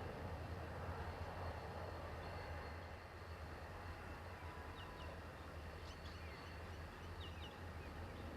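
Faint, steady low drone of EMD diesel locomotives working a heavy train, with a few bird chirps about five to seven seconds in.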